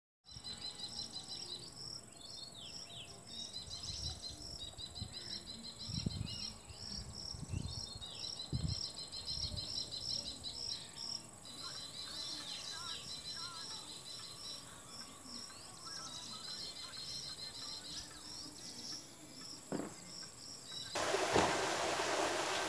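Insects chirping in rapid, even high-pitched rows, with a few faint low thumps. About 21 s in, a loud steady rush of flowing water from the stream channel cuts in.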